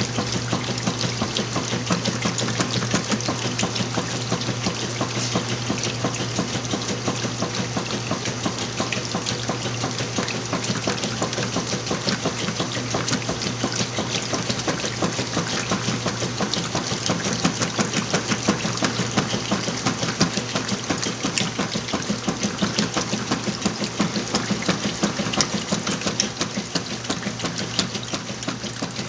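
Whirlpool washing machine running its wash cycle: a steady motor hum with water sloshing as a heavy load of clothes is washed.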